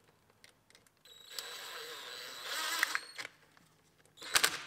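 Cordless impact wrench running in a seat belt anchor bolt: the motor whirs steadily for about two seconds as the bolt spins down, then a short burst of rapid hammering near the end as the impact mechanism tightens it.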